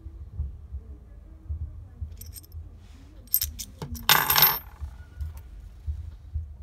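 Metal key blanks clicking against each other and onto a wooden tabletop: a few light clicks, then a brief metallic jingle with a high ring about four seconds in.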